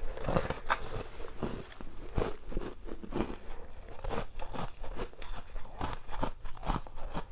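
Close-miked chewing of a mouthful of frozen basil-seed ice: a steady, irregular run of sharp crunches as the ice is ground between the teeth.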